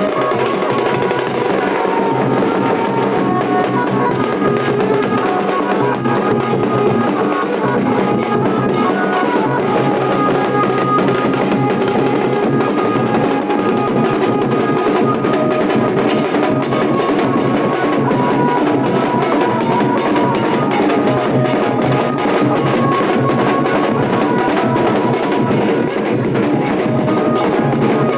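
Nashik dhol drumming playing a dense, continuous beat at a steady level, with a pitched melody line moving over the drums.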